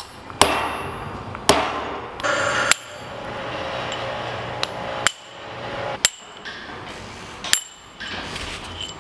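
Hammer striking a steel punch to drive the roll pin out of a Dana 44 differential carrier: about seven sharp, ringing metal-on-metal strikes, spaced unevenly.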